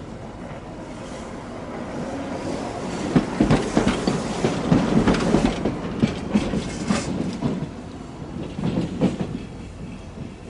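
Hiroshima Electric Railway streetcar running past, its wheels clacking over rail joints. The sound builds to its loudest clatter midway, eases off, and gives a last run of clacks near the end.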